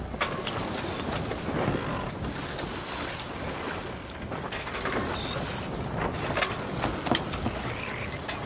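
Handling noise: cotton-gloved fingers rubbing and tapping on a clear plastic coin capsule as it is turned, giving short scattered clicks over a steady rushing noise like wind on the microphone.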